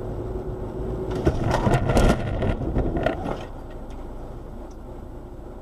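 Car dashcam recording of a road collision: steady road and engine noise, then a cluster of sharp impact noises from about one and a half to three and a half seconds in, loudest at about two seconds, followed by a quieter rumble.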